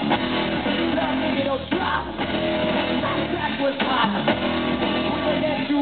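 Live rock band playing loud, with electric guitar and bass chords over drums.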